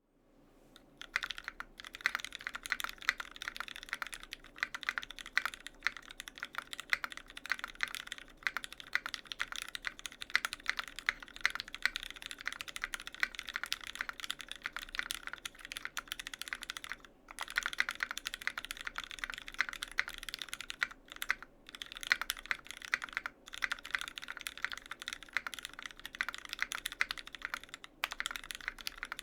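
Continuous fast typing on a custom mechanical keyboard with lubed Cherry Hyperglide MX Black linear switches on a stainless steel plate, under GMK keycaps. It is a dense, steady stream of key clacks that starts about a second in, with a few short pauses.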